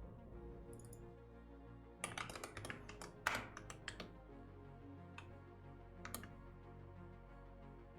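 Computer keyboard typing: a quick run of keystrokes from about two to four seconds in, then a couple of single key presses, over soft background music.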